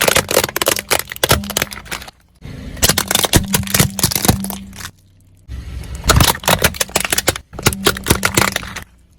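Crunchy objects crackling and snapping under a car's tyres as it rolls over them: rapid, dense cracks over the car's low hum. The sound comes in three stretches that break off abruptly about two and five seconds in.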